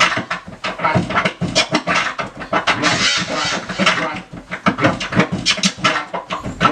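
Vinyl scratching on a portable turntable: the record is pushed back and forth in rapid strokes, several a second, with hardly a break.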